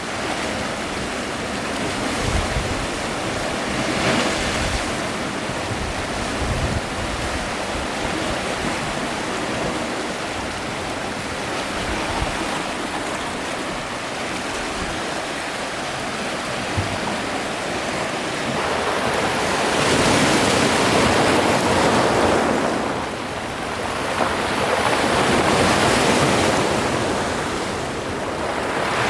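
Sea waves washing in, with wind buffeting the microphone; the wash swells louder twice in the second half.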